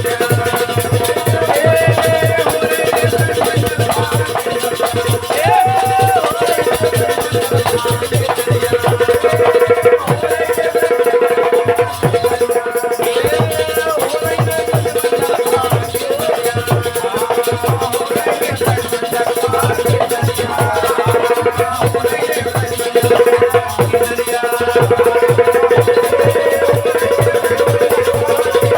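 Desi phag folk music: a wavering melody over a steady held drone, with a fast, even drumbeat and a shaken rattle keeping time.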